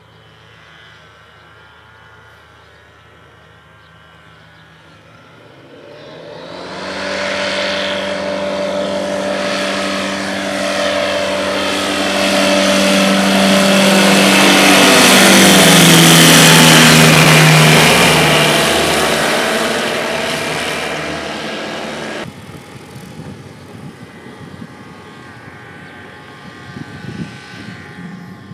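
Single-engine propeller light aircraft flying low overhead. Its engine drone swells over several seconds, then drops in pitch as it passes. The sound cuts off suddenly about three quarters of the way through, leaving a fainter engine hum.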